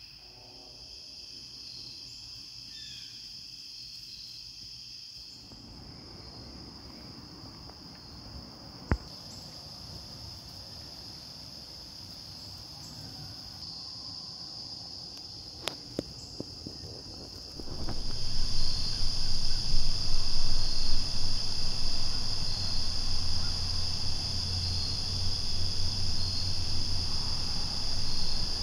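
Steady, high-pitched chorus of insects in woodland. A few sharp clicks sound near the middle, and from about two-thirds of the way through a louder low rumbling noise joins the insects.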